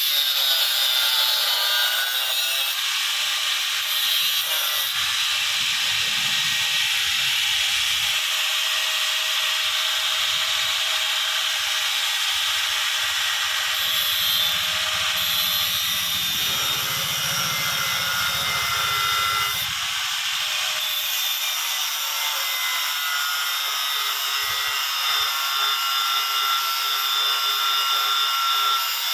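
Power tool working on steel bar, a continuous harsh noise high in pitch.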